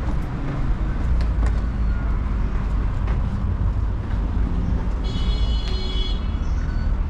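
Steady low rumble of city road traffic heard from inside a pedestrian underpass, with a brief shrill tone about five seconds in.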